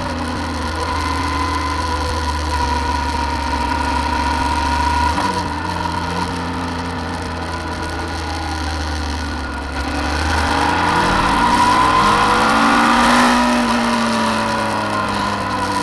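Suzuki V-Strom 650 XT motorcycle's 645 cc V-twin engine running under way. About two-thirds of the way through the revs climb and the sound gets louder, then the pitch eases off again near the end.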